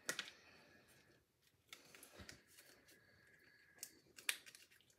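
Near silence with faint paper-handling sounds: soft rustles and a few small clicks as card stock and a sheet of foam adhesive dots are handled, the two sharpest near the end.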